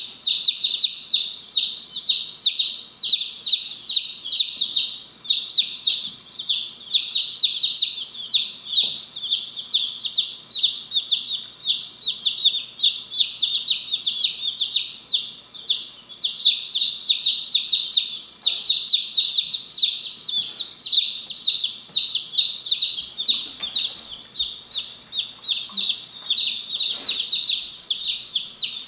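A brood of Light Brahma chicks peeping continuously, a dense chorus of short, high, downward-sliding cheeps.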